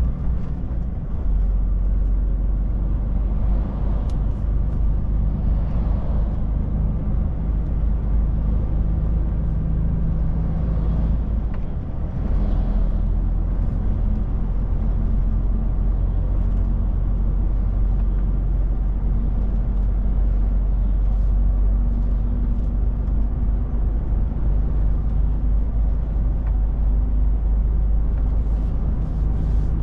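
DAF truck's diesel engine running under way, heard inside the cab as a steady low drone mixed with road and tyre noise. About twelve seconds in the drone dips briefly, then carries on.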